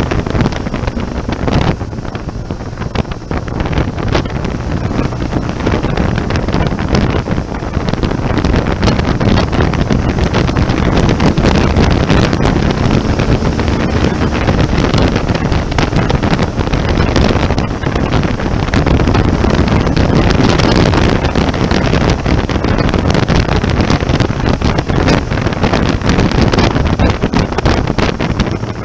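BMW motorcycle riding along at road speed, its engine and tyre noise mostly buried under heavy wind buffeting on the microphone.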